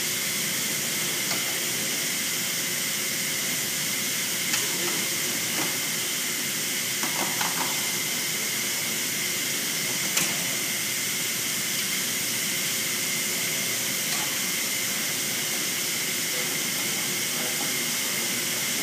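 A steady airy hiss at an even level, with a few light clicks and taps, the sharpest about ten seconds in.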